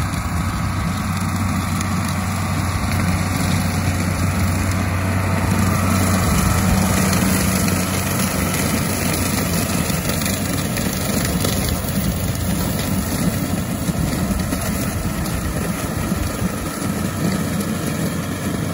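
New Holland 8160 tractor's six-cylinder diesel engine running steadily under load, pulling a PTO-driven Ford batwing rotary mower that is chopping corn stalks. The steady engine drone is the loudest sound, with the mower adding a noisy rush.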